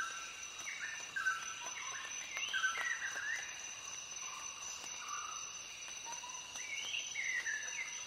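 Nature ambience: a steady, high insect trill with short whistled bird notes scattered through it, some rising and some falling.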